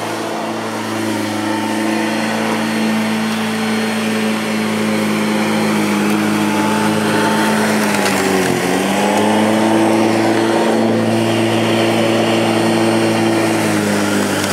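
Ozito 1400W electric lawn mower's motor and blade running steadily with an even hum. About eight seconds in, the pitch dips briefly as the mower bogs into thick, long grass, then recovers.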